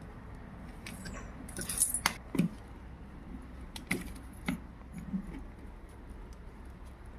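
Scattered light clicks and small knocks, about half a dozen, from small objects being handled, over a faint steady low hum.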